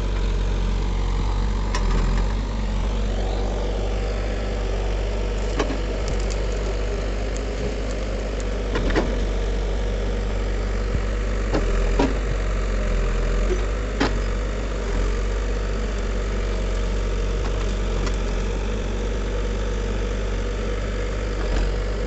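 Caterpillar 428B backhoe loader's diesel engine running steadily while the backhoe arm digs, with a few short sharp knocks spread through.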